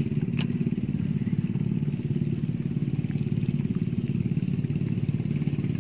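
A small engine running steadily, a low, fast-pulsing drone, with a single short click about half a second in.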